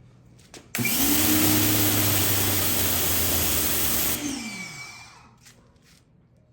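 Electric pressure washer starting abruptly and running steadily for about three seconds with a loud rushing hiss and a steady motor hum, then cutting off as the motor winds down with a falling pitch.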